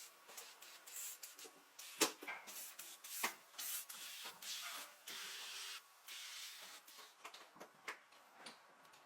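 Restoration workshop sounds: a run of light clicks and knocks from parts and tools being handled, with sharp knocks about two seconds in and just after three seconds, and a steady hiss lasting about a second a little after five seconds in.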